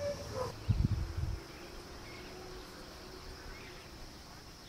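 Steady high-pitched insect drone, with a short cluster of low thumps about a second in.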